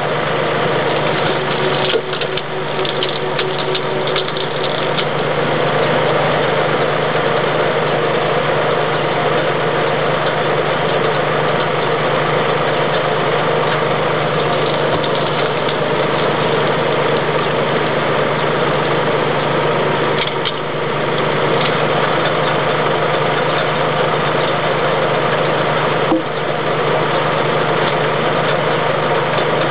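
Tractor engine running steadily to power a log splitter. A few sharp cracks and knocks come through, several near the start and twice later on, as logs split.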